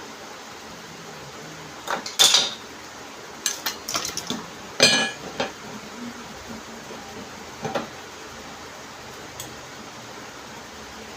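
Metal tools and washing machine gearbox parts clinking and knocking against each other in scattered groups, loudest about two and five seconds in.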